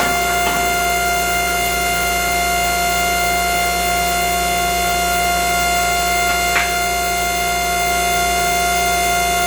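Hydraulic press power unit running, its electric motor and pump giving a steady, unchanging whining drone, with a couple of faint clicks about half a second and six and a half seconds in.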